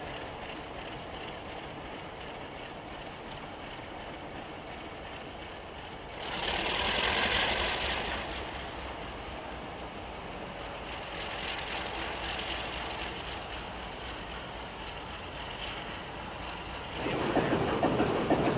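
ALCO/MLW FPA diesel locomotive running as it moves slowly down the track. A hiss lasting about two seconds comes about six seconds in, and a louder clattering starts near the end.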